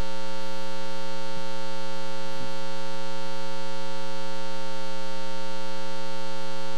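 Steady electrical mains hum: a constant buzz with a ladder of many overtones that holds at the same level throughout.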